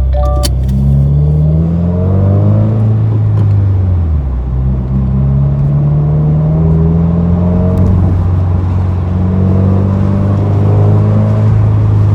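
Subaru WRX's turbocharged flat-four engine and exhaust, fitted with a Remark non-resonated midpipe, accelerating. Its pitch climbs three times, dropping back between the pulls, about three and eight seconds in.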